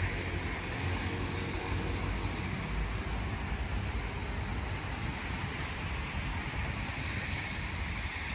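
Steady outdoor city ambience: a low, even rumble of traffic with wind on the microphone.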